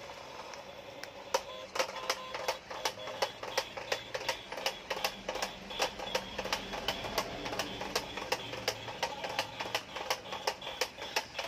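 Remote-control 360° stunt car's electric motors whirring as it flips and spins, its wheels knocking on the tiled floor about three times a second from about a second in.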